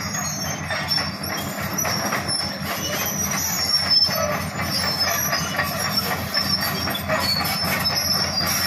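Hitachi Zaxis hydraulic excavator working: its diesel engine runs steadily, with high-pitched metallic squeals and short clanks from the machine's moving parts.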